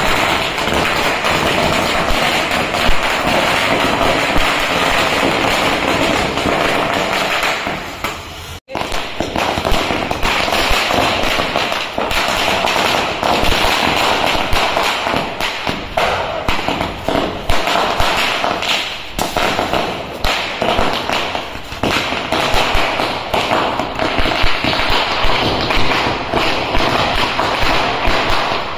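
Fireworks hissing and crackling without a break, with many small sharp pops through it. The sound cuts out briefly about nine seconds in, then carries on with more popping.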